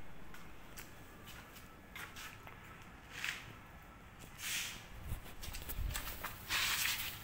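Handling noise of a phone being carried and turned: scattered light clicks, short rustles a few times, and a few soft low thumps a little past the middle.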